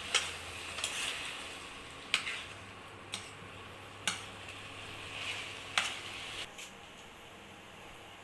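Chicken frying in a pan with turmeric, sizzling while it is stirred. A utensil knocks sharply against the pan about six times. The sizzle fades near the end.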